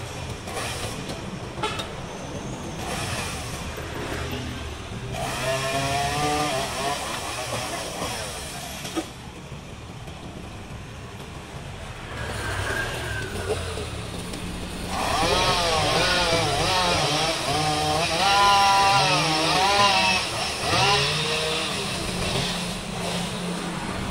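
A chainsaw revving up and down in two spells, about five seconds in and again from about fifteen to twenty-one seconds, over a steady hum of street traffic.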